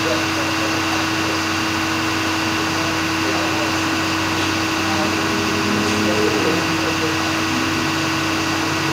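Steady mechanical hum of a running motor, holding one even pitch throughout.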